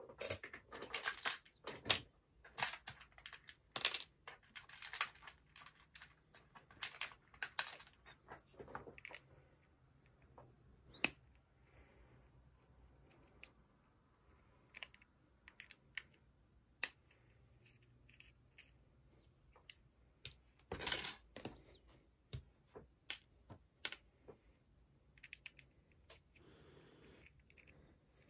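Irregular small metallic clicks and taps from handling the upper assembly of an Action Army AAP-01 airsoft pistol and working on it with a hex key. The clicks come thick at first, thin out through the middle, and bunch up again into a louder cluster about two-thirds of the way through.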